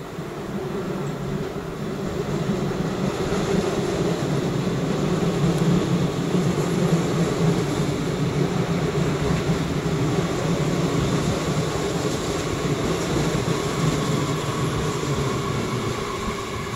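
DB class 422 electric multiple unit rolling along the rails: a steady rumble that grows louder over the first few seconds and then holds, with a faint steady whine in the second half.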